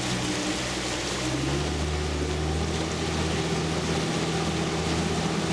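Tour boat's motor running steadily; about a second and a half in its note rises as it speeds up, then holds at the higher pitch.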